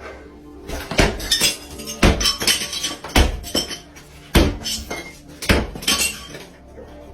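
Sledgehammer smashing a remodeled bathroom: five heavy blows about a second apart, each followed by breaking and clattering debris.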